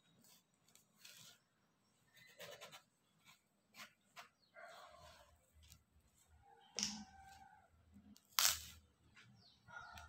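Faint knife work on a raw ash gourd: scattered quiet scrapes and taps as the seeds and soft inner layer are cut away, with a sharp click about eight and a half seconds in. A short pitched sound comes just before seven seconds.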